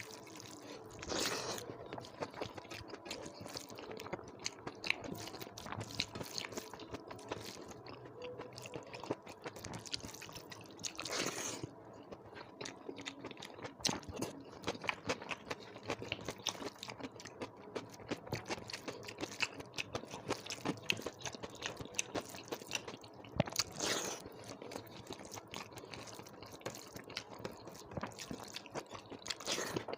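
A person chewing and crunching a meal of rice, dal, curry and salad, with many small mouth clicks and smacks throughout. Louder noisy bursts come about a second in, about a third of the way through and again past three-quarters.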